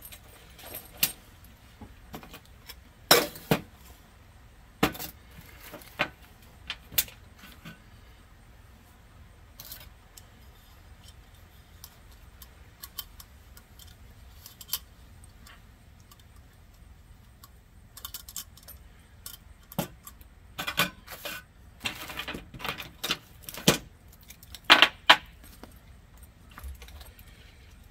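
Small metal camping gear clinking and knocking as it is handled and packed into a canvas military satchel, with cloth rustling in between; the clatter is busiest near the end.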